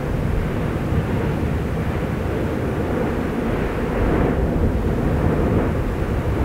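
Steady low roar of the erupting Fagradalsfjall volcano, lava surging in its crater, swelling slightly about four seconds in.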